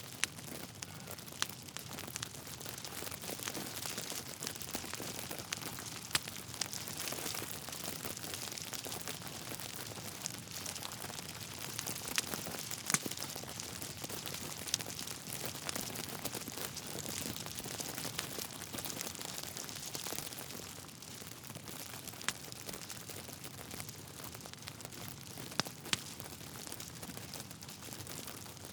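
Logs burning in a fireplace: a steady soft crackle and hiss, with scattered sharp pops, the loudest about halfway through.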